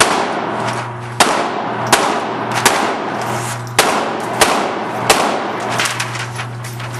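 Gunshots on a shooting range: six sharp, echoing shots in two groups of three, each shot about 0.7 s after the last, over a steady low hum.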